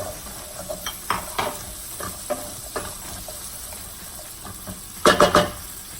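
Shredded chicken, diced onion and carrots sizzling in oil in a frying pan while being stirred, with scattered light taps of a utensil on the pan and a louder clatter about five seconds in.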